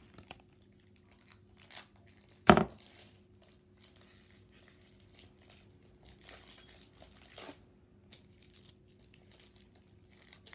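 Foil wrapper of a Pokémon card booster pack crinkling and tearing as it is opened by hand, in faint irregular crackles. One loud sharp knock comes about two and a half seconds in.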